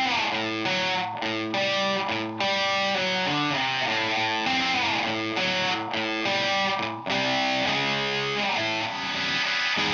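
Electric guitar played through the Tempus Fuzz, a PT2399 delay-chip pedal giving a squarewave fuzz with echo. Dense distorted notes keep sounding, and several of them slide down in pitch.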